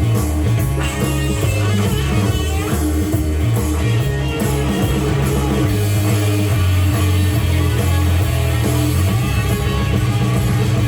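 Rock band recording playing an instrumental passage with no vocals: electric guitar, bass and drum kit.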